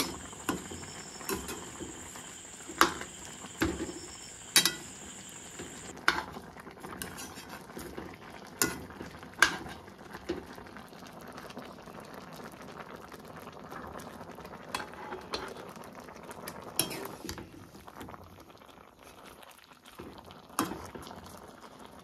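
Stew simmering and bubbling in a metal wok on a gas burner, with scattered sharp clinks of a metal ladle against the pan, most of them in the first half.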